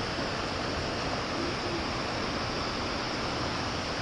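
Steady rush of a waterfall and creek, an even unbroken roar of water.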